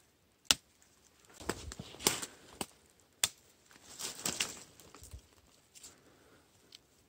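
Young Japanese angelica tree (dureup) shoots snapped off a thorny stem by a gloved hand: a few sharp snaps, the first the loudest, between two bursts of leafy rustling.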